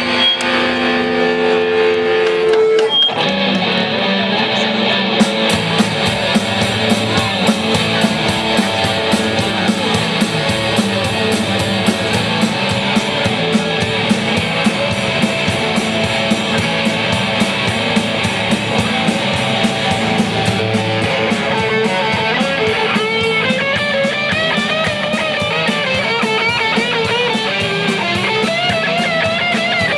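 Live rock band playing an instrumental passage with two electric guitars, bass and a Yamaha drum kit. Held guitar notes open it, the full band with a steady drum beat comes in about three seconds in, and from about two-thirds through a lead electric guitar plays wavering, bent notes over it.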